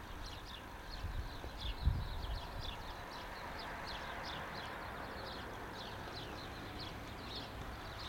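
Small birds chirping over and over, short falling notes a few each second, over a low rumble with a single thump about two seconds in.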